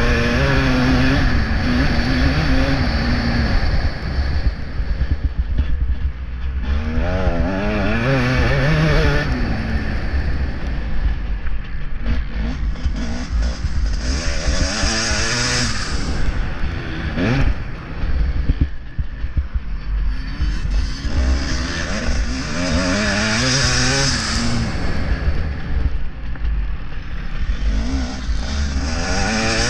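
Motocross bike engine heard from a camera mounted on the bike, revving up and falling back again and again as the rider opens and shuts the throttle through the track, over a steady low wind rumble on the microphone.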